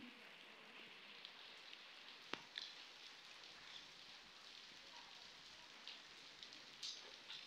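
Faint steady rain falling on a flooded concrete street and its puddles. A few sharper drips or ticks stand out, the loudest a little over two seconds in and another near the end.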